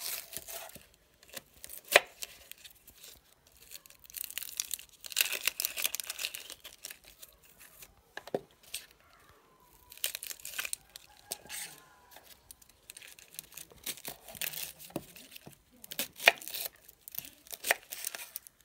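Red onion being peeled with a kitchen knife on a wooden cutting board: the dry, papery skin tearing and crinkling in short spells, with irregular sharp taps of the knife against the board.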